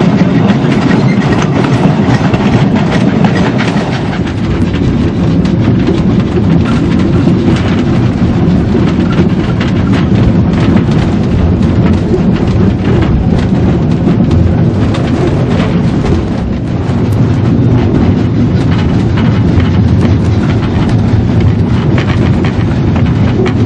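Narrow-gauge K-36 steam locomotive and train running: a loud, steady rumble with quick, continual clatter of wheels on the rails.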